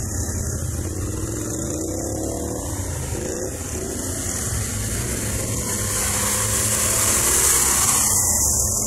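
ATV engine running under throttle, its pitch rising and falling as it revs, growing louder in the last few seconds.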